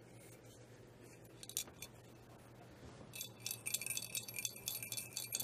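SaberForge ASP lightsaber's metal hilt making a metallic chingling as it is turned in the hands. Rapid high ringing jingles start about three seconds in, a sound that doesn't sound good and points to something loose in the hilt.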